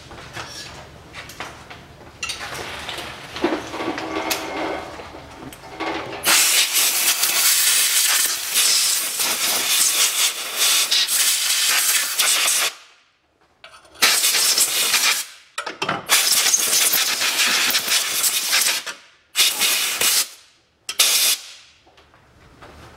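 Pressurised spray hissing from a thin nozzle, starting about six seconds in and cutting off and restarting several times, as road grime is blasted off the Haldex coupling housing.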